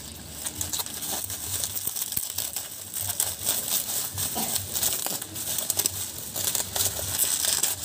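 Bubble wrap crinkling and crackling irregularly as it is handled and unwrapped by hand.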